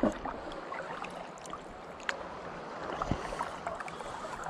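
Water lapping and splashing against a kayak's hull, a steady wash broken by many small splashes and a couple of slightly louder knocks. This fits the wake of a passing ski boat reaching the kayak.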